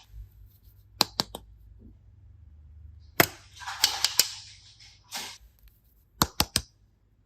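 Sharp clicks and taps in small groups: three quick ones about a second in, more around three to four seconds in with a short rustling hiss, and three quick clicks near the end.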